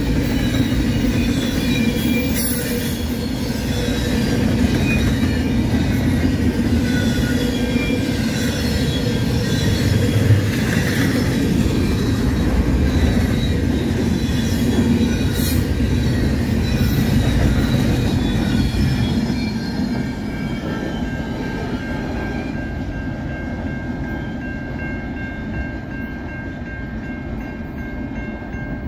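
Double-stack intermodal freight cars rolling past, with a heavy rumble and clatter of steel wheels on rail and steady high wheel squeal. After about 19 seconds the rolling noise fades as the last cars go by, and the steady ringing of the level-crossing bell comes through.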